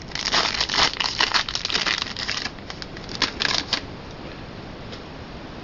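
Trading cards being handled and slid against one another: a dense run of small clicks and rustles for about two and a half seconds, a few scattered clicks after that, then only faint hiss.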